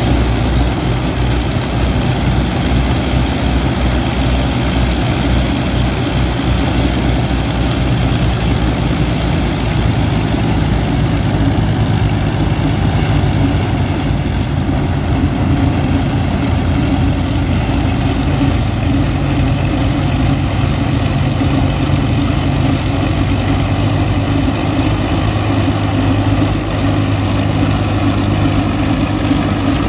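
Avro Lancaster's Rolls-Royce Merlin V12 piston engines running at low power on the ground, a loud, steady low drone of engines and propellers, the pitch shifting slightly about ten seconds in.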